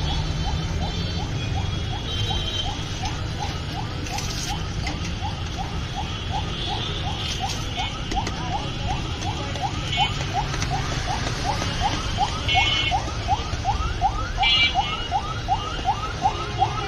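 An electronic alarm sounds a quick rising chirp over and over, about two or three a second, over a steady low hum of street noise.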